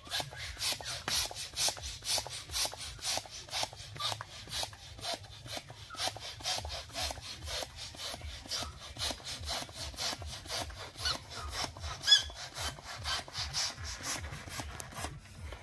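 Small plastic hand pump being worked back and forth to inflate a long twisting balloon: a regular hiss of air with each stroke, about two strokes a second. One sharp squeak comes late on.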